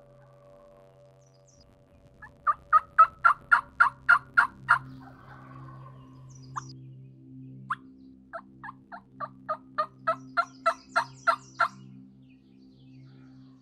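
Hen turkey yelps from a diaphragm mouth call, given as loud, evenly paced strings of about three to four notes a second. A run of about ten yelps comes a couple of seconds in, then two lone notes, then a second run of about a dozen near the end. It is a caller's hen talk, meant to pull in gobblers that have hung up.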